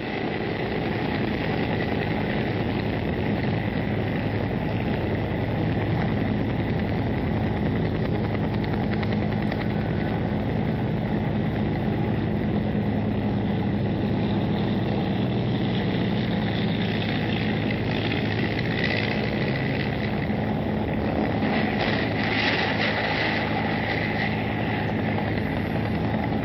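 A steady, engine-like mechanical drone with an even low hum, swelling up over the first second and then holding level throughout.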